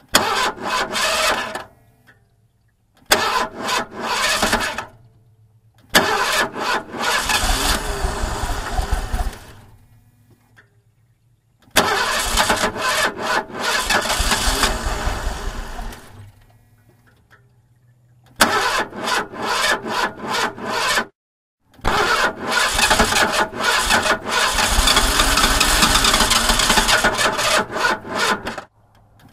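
A car engine stalling again and again, about six times: each time it is cranked, catches with a rapid chatter and runs briefly, then dies away into a pause. The longer runs, a few seconds in and again in the second half, hold a rough low running note before the engine cuts out.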